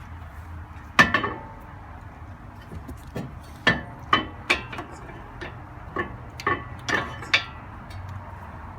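Sharp metallic clicks and clinks with a short ring, about eight of them, one about a second in and a quick run later, as steel brake pads and their back plates are handled and fitted together.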